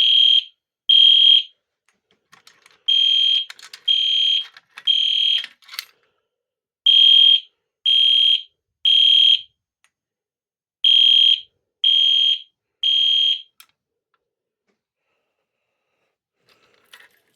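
Edwards Genesis fire alarm horn sounding the temporal-three evacuation pattern. It gives high-pitched half-second beeps in groups of three, with a pause before each group repeats. The last two beeps of one group are followed by three full groups, and then the horn falls silent a little over three-quarters of the way through. Faint clicks are heard between some of the groups.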